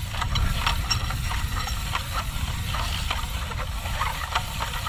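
Wind buffeting the microphone as a steady low rumble, with short scattered calls of birds in the distance.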